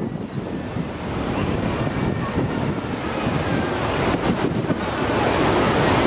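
Steady rush of river water pouring over a concrete overflow dam and through the rocks and breakwaters below it, growing louder about five seconds in. Wind buffets the microphone.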